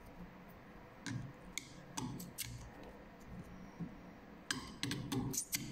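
Light sharp clicks and taps from hands handling a small sealed lead-acid battery and tools: a few spaced out, then a quick cluster of louder clicks near the end.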